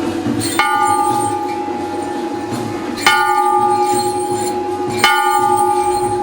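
Hindu temple bell struck by hand three times, about two seconds apart, each strike ringing on with a clear tone, over a lower steady ringing tone.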